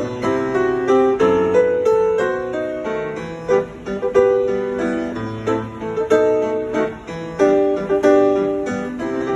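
Solo piano playing, a melody over chords with notes struck in a continuous flow.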